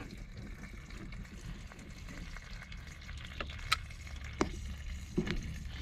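A few light clicks and scrapes of a thin wire poked into the cooling-water tell-tale hole of a Yamaha 6 hp outboard to clear a blockage, mostly in the second half, over a steady low hum and faint hiss.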